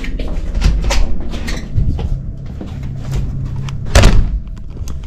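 Hotel room door being handled and pulled shut: clicks and rattles from the lever handle and latch, then a heavy clunk about four seconds in as the door closes.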